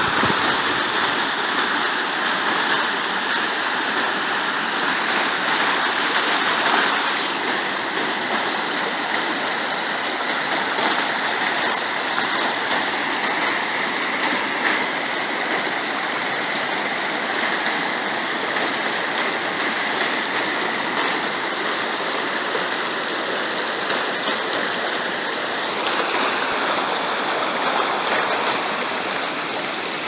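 River water rushing over rocks in shallow rapids, a steady rush.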